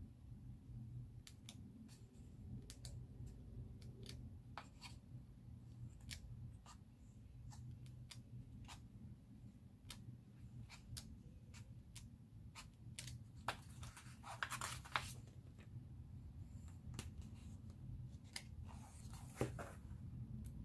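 Pages of a thick sticker book being turned by hand: light paper ticks and crinkles as sheets are lifted, with two longer paper rustles as bunches of pages are flipped over, about two-thirds of the way in and near the end. A steady low hum runs underneath.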